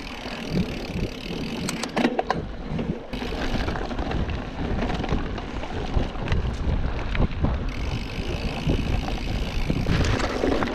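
Mountain bike riding a dirt trail: knobby tyres rolling on packed earth, with the bike rattling and clicking over bumps and wind rumbling on the microphone. Near the end the tyres run onto loose stones.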